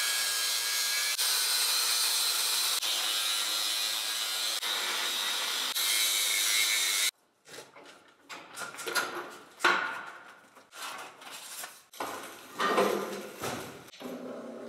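Angle grinder cutting through old galvanized steel water pipe: a steady, loud grinding hiss for about seven seconds that cuts off abruptly. After it come scattered metal clanks, knocks and scrapes as the cut pipe sections are worked loose and pulled down.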